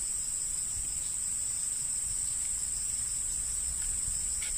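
A steady, high-pitched chorus of insects, one unbroken buzzing tone.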